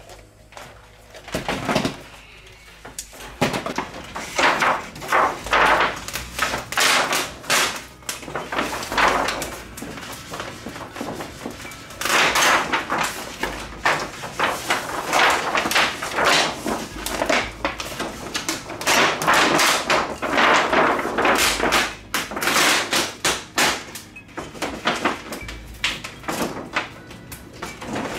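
The large, thin plastic reflector sheet of a TV's LED backlight being lifted and flexed by hand, rustling in loud, irregular bursts.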